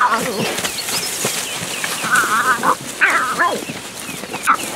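Lion cubs calling to their lioness mother in greeting: a string of high mews and yelps, some wavering and some falling in pitch, several overlapping.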